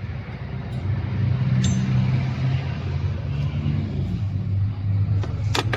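A motor vehicle engine running steadily with a low rumble, with a sharp click near the end.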